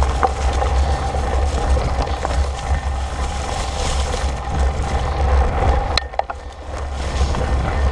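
Fat bike rolling along a leaf-covered dirt trail, heard from a camera on the handlebars: a steady rumble of wind and tyre noise with a faint steady hum. About six seconds in the rumble eases off and a few sharp clicks come through.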